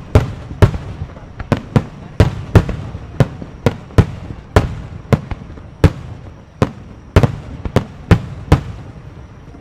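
Aerial fireworks bursting in a rapid barrage: sharp bangs about two to three a second, each trailed by a rumbling echo, stopping about a second before the end.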